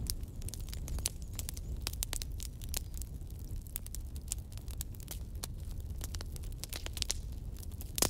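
Wood bonfire crackling: dense, irregular sharp pops and snaps over a low steady rumble.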